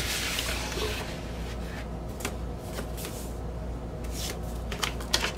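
Paper and cardboard rustling and sliding as a record's paper inner sleeve is drawn out of a gatefold LP jacket, loudest in the first second, followed by a few light taps and clicks.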